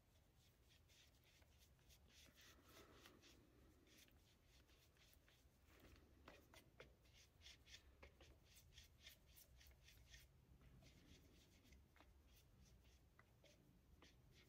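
Faint, irregular scratching and ticking of a paintbrush stirring catalysed fiberglass resin in a plastic mixing cup, busiest around the middle.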